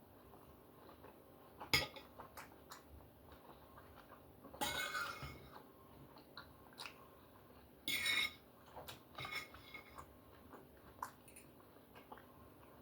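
Cutlery clinking and scraping on a plate while steak is eaten: a sharp clink about two seconds in, two longer scrapes around five and eight seconds, and scattered small clicks in between.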